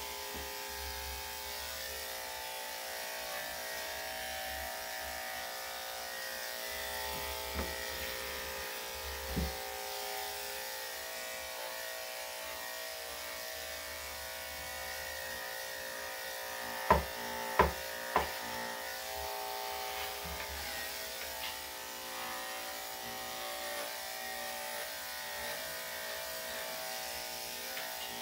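Electric dog grooming clippers running with a steady hum. A couple of light knocks come partway through, and three sharp clicks in quick succession a little past halfway.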